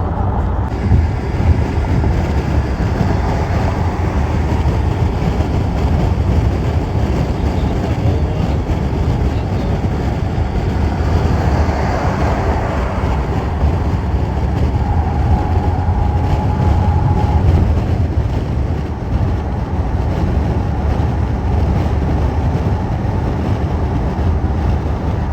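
Steady low rumble of vehicle or engine noise, with a faint steady tone for a couple of seconds past the middle.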